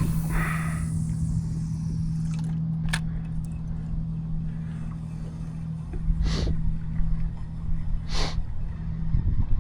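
Boat motor running with a steady low hum, over a low rumble of wind on the microphone. A few short hissing noises come about three, six and eight seconds in.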